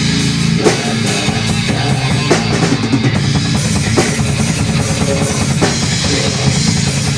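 Live rock band playing an instrumental passage: drum kit, with bass drum, snare and cymbals, pounding over sustained guitar and bass.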